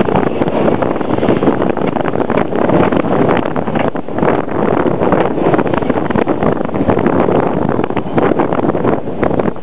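Steam train running, a loud steady rumble with wind buffeting the microphone.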